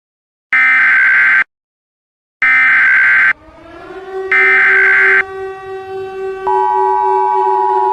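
Emergency Alert System SAME header: three short bursts of harsh digital data tones about a second apart. From about six and a half seconds in, the steady two-tone EAS attention signal follows. Underneath, from about three and a half seconds in, a low steady tone swells in loudness.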